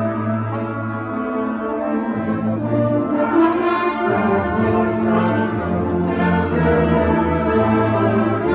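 Student concert band playing, with brass instruments (trumpets and trombones) to the fore, holding long chords whose low notes shift every second or so.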